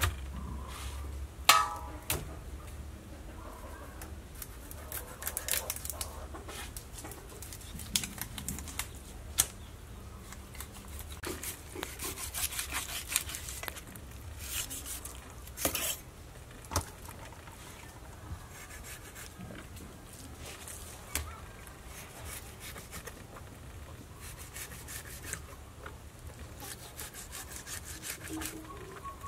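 Heavy kitchen cleaver scraping and slicing snakehead fish fillets on a wooden chopping block: irregular scrapes and knocks of the blade on the wood, with a dense run of scraping about halfway through. The loudest is a sharp knock about a second and a half in.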